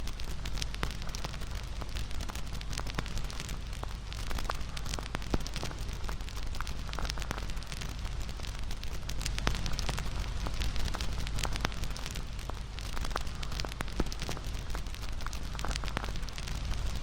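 Campfire burning with a steady low rumble and frequent sharp crackles and pops of burning wood.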